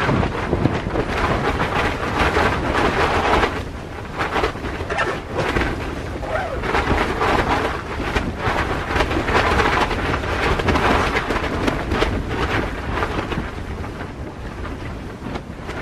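Strong storm winds gusting against a canvas hot tent, the fabric flapping over a low rumble. The gusts come in surges and ease off near the end.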